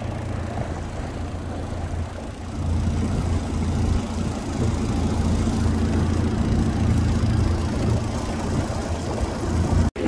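Small boat's outboard motor running steadily under way, with water noise around the hull; the motor grows louder about two and a half seconds in.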